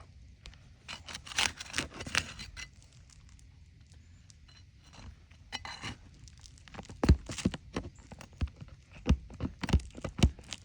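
Nails being pried out from under brittle asphalt roof shingles: scraping and crackling of the shingles tearing, with a series of sharp metallic knocks and clicks, loudest in the second half.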